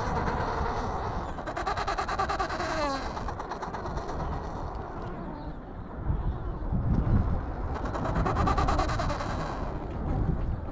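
Adélie penguin colony calling: overlapping rapid, pulsed braying calls, one sliding down in pitch about three seconds in. Wind rumbles on the microphone throughout, strongest around seven seconds in.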